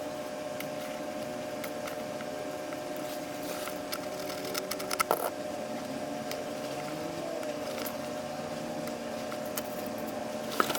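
A steady mechanical hum, with a few sharp clicks and knocks of handling, the loudest about halfway through and near the end.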